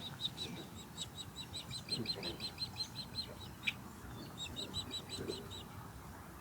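Osprey giving runs of short, high whistled chirps, about six a second, in three bursts with brief pauses between them. One sharp tick sounds about two-thirds of the way through.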